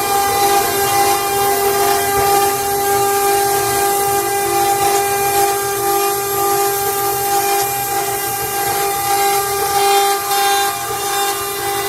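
A loud horn tone held steadily without a break, several pitches sounding together over a rushing noise.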